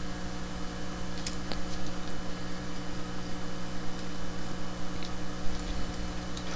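A steady low hum with a few faint, scattered clicks from the computer's controls during mouse-driven painting.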